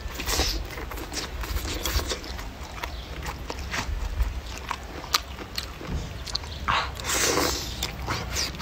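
Close-up eating sounds: biting into and chewing a big mouthful of whole green chili peppers and stir-fried rice vermicelli, with many sharp wet clicks and crunches. A longer slurp comes near the end.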